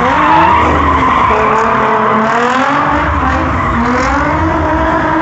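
Two drift cars sliding sideways in tandem: their engines rev hard, pitch wandering up and down as the throttle is worked, over the continuous squeal of tyres skidding on the pavement.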